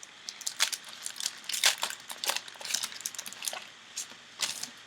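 Irregular short crackles from a foil trading-card pack wrapper being crinkled and torn open.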